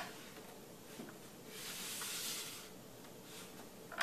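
A large paper chart being taken down from a whiteboard: a soft knock about a second in, then a brief rustling swish lasting about a second.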